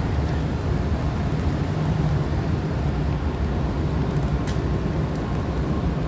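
Steady city background noise in the rain: a low rumble with a hiss of rain over it, and a faint click about four and a half seconds in.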